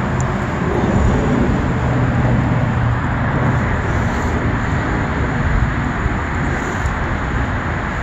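Steady city traffic noise of vehicles on the road, with a low engine hum that fades out about three seconds in.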